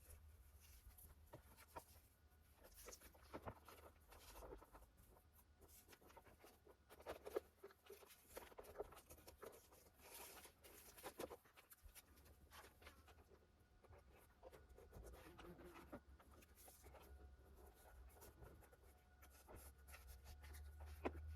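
Faint rubbing and scratching of fingers pressing a thin adhesive anti-rattle strip onto the plastic edge of a Lada Vesta door-card pocket, with scattered light clicks and rustles.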